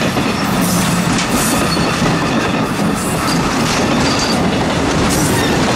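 Cuyahoga Valley Scenic Railroad passenger cars rolling past close by: steady, loud wheel-and-rail noise with clickety-clack over the rail joints.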